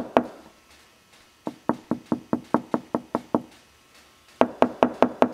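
Knuckles rapping quickly on the plastic rear cab panel of a Polaris Ranger 900, part of it covered in 80 mil Noico sound-deadening mat. The sound contrasts hollow plastic with deadened panel: a run of about ten duller knocks in the middle, then about six brighter, sharper knocks near the end.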